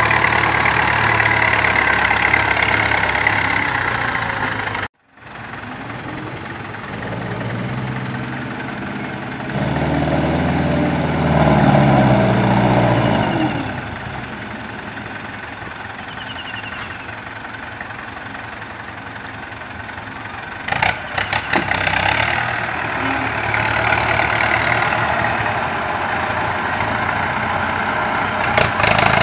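A farm tractor's engine running, cut off suddenly, then a loaded six-wheel dump truck's engine: it pulls away and grows louder about a third of the way in, then runs more quietly. About two-thirds in come a few sharp knocks and a steadier, louder engine as the loaded dump bed is raised to tip the soil.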